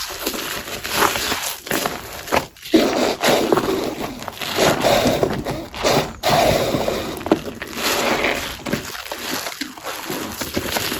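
A sponge coated in crunchy gym chalk paste being squeezed and crushed: continuous, irregular crunching with many small crackles, broken by a couple of brief pauses.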